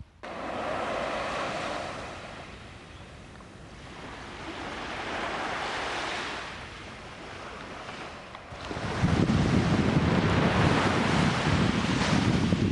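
Small waves washing up onto a sandy beach and drawing back, swelling and fading twice. From about nine seconds in, a louder low rumble of wind buffeting the microphone covers them.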